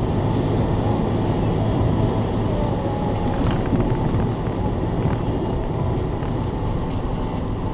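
Steady road and engine noise inside a moving car, heard through a dashcam: a constant low din of tyres on tarmac and the engine, with no distinct events.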